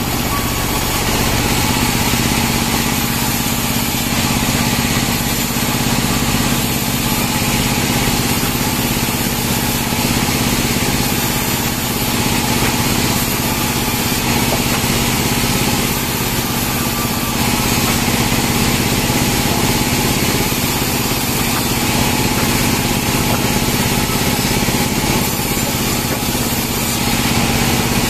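Band sawmill running steadily with a constant machine hum, its blade sawing Merkus pine logs into boards.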